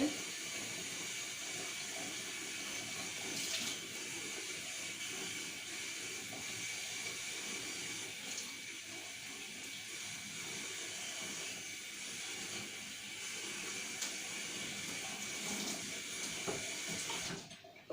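Water running steadily from a tap, shut off suddenly near the end.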